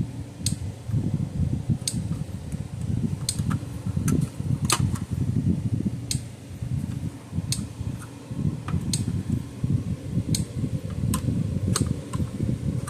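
Steady fan-like whir with scattered light clicks and taps, about one every second, from a capacitor lead being fitted into a freshly drilled hole in a fence charger's circuit board.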